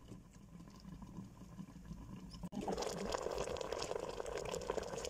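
Faint low hum, then, about halfway through, a sudden change to a louder bubbling and crackling: a whole chicken simmering in thick curry sauce in an uncovered pot.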